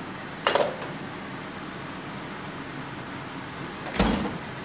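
Items being handled in an open refrigerator: a couple of short knocks and a heavier thump about four seconds in, over a steady background hum, with a faint high steady tone in the first second and a half.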